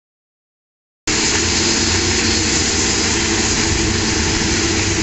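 A pack of motocross bikes running together at high revs at the start of a race, a loud, steady mass of engine noise. It cuts in abruptly about a second in.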